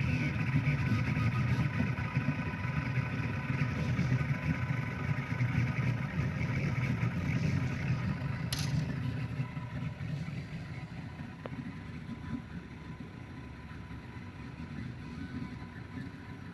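3D printer running: a steady low mechanical hum with a few steady whining tones over it. There is a single sharp click about halfway, and the sound gets quieter soon after.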